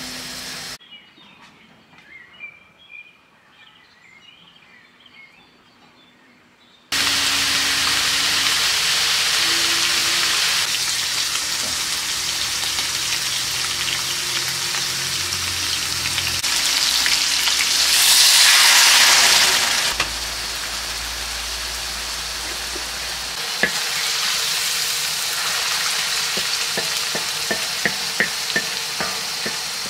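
Food frying in a hot pan: a steady sizzle that starts abruptly after a quiet opening stretch and swells for a couple of seconds past the middle, with occasional light clicks of a utensil stirring.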